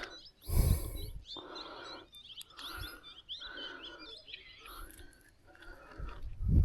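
Small birds chirping in a busy run of quick, high twitters. A low rumble, like wind or handling on the microphone, comes about half a second in and again near the end.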